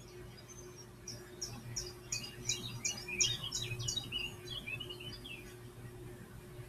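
Bird song played from a YouTube bird video through computer speakers: a run of quick chirps, about three a second, building from about a second in and dying away about five seconds in, over a steady low hum.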